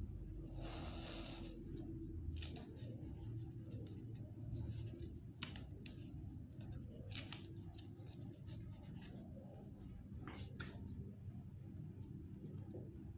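Handling of artificial orchid stems and leaves as they are pushed into a moss-filled pot: a rustle in the first second or so, then a few short sharp clicks scattered through the rest.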